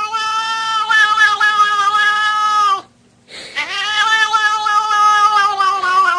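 A cat yowling in long, drawn-out calls: one held call breaks off about three seconds in, and after a short pause a second long yowl starts and holds a steady pitch.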